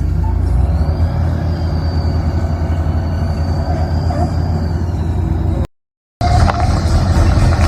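Heavy diesel vehicle engine running with a steady low rumble. It cuts out completely for about half a second near the end, then carries on.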